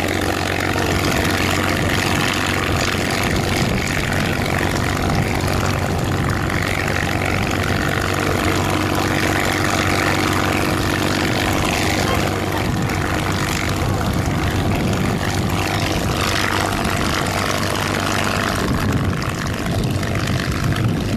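P-51D Mustang's Packard Merlin V-12 engine running steadily at idle, the four-blade propeller turning. Near the end the sound begins to waver as the fighter starts to taxi.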